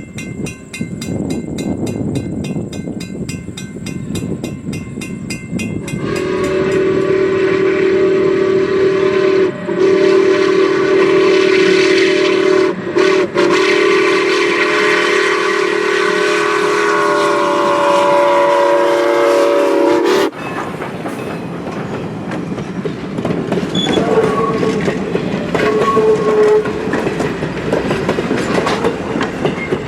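Steam locomotive's chime whistle blowing one long, loud blast of about fourteen seconds, broken twice by short gaps, over the train's running noise. After that the train keeps rolling with a clickety-clack, and there are a couple of faint short whistle tones.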